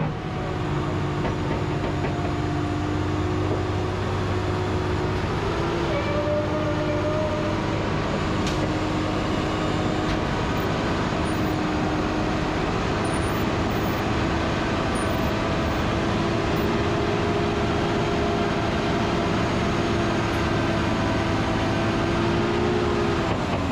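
Roll-off truck's diesel engine running steadily under load to drive its hydraulic hoist as a steel dumpster is pulled up onto the truck. It makes a steady drone with a held humming whine that shifts slightly in pitch, and the hum drops in pitch near the end.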